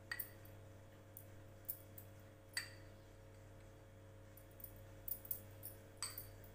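A few light, scattered clicks and clinks of kitchen utensils against a steel bowl and plate as flour is tipped out, over a steady low hum.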